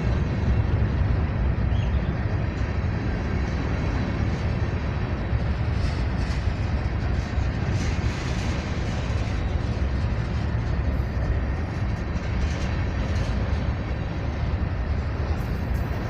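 Freight train cars rolling past: a steady low rumble of steel wheels on rail, with a few faint clanks.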